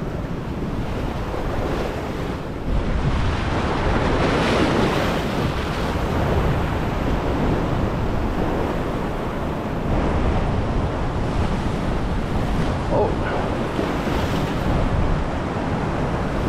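Ocean swell surging and washing over a rock ledge in loud waves, with wind buffeting the microphone. The wash swells louder about three seconds in and again near ten seconds.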